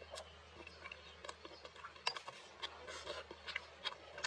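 Close-miked chewing of a mouthful of braised meat and rice: irregular sharp clicks and smacks of the mouth, a few each second, over a low steady hum.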